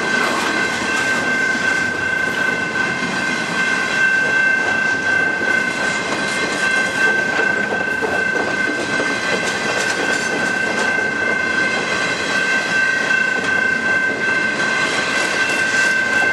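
Double-stack intermodal freight cars of a Canadian Pacific train rolling steadily past at close range, with a steady high ringing tone held over the train noise throughout.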